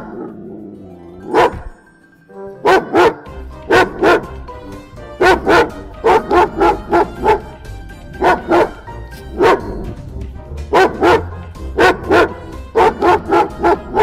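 German Shepherd barking over and over in short runs of one to four barks, over steady background music.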